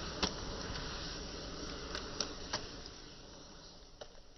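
A large pile of burning matchsticks: a steady rush of flame with sharp, scattered crackles and pops, growing quieter after about three seconds.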